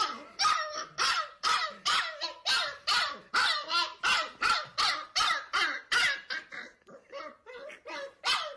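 A dog barking over and over, about two barks a second. The barks grow softer for a few barks near the end, then one louder bark follows.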